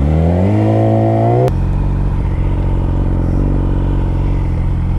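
Yamaha R6 inline-four engine revving up as the bike accelerates, the pitch climbing then holding. About a second and a half in, a click and a drop in revs mark an upshift, after which the engine runs steadily at a lower note.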